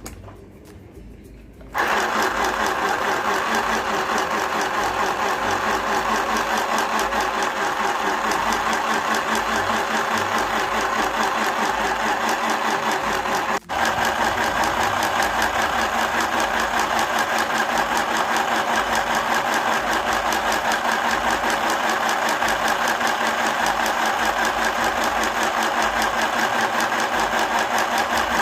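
Mini sewing machine running with a fast, even stitching rhythm. It starts about two seconds in and cuts out for an instant about halfway through.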